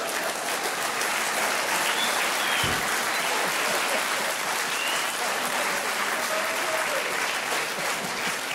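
Studio audience applauding steadily after a joke's punchline.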